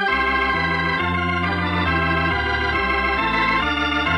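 Organ music playing sustained chords that change every second or so, a closing musical bridge after the scene's last line.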